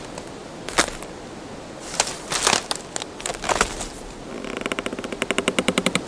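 Dry wood cracking and snapping in a few sharp cracks. From about four seconds in comes a rapid run of clicks that grows louder, a wooden creak.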